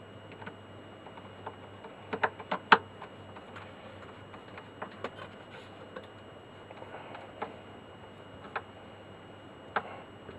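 Sharp metallic clicks and taps of a screw being driven into a record player's front panel with a screwdriver, with a quick cluster of louder clicks about two to three seconds in and a few scattered single ticks after.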